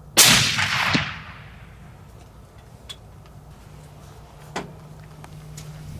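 A single shot from a suppressed .300 Win Mag bolt-action rifle just after the start, its report ringing and dying away over about a second with a second sharp crack near its end. A short click follows about four and a half seconds in.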